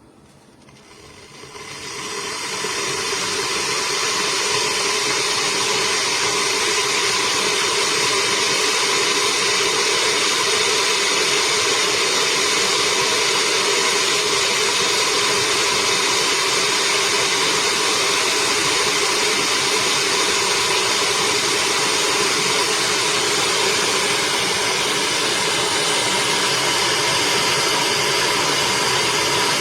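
Electric kettle heating water: a steady rushing hiss with a faint hum in it, swelling over the first couple of seconds and then holding level.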